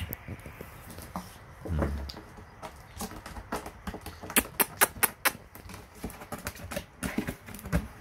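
Irregular sharp clicks and taps, coming thickest and loudest from about four to five and a half seconds in.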